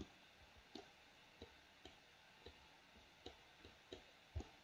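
Faint computer mouse button clicks, about nine of them at uneven intervals.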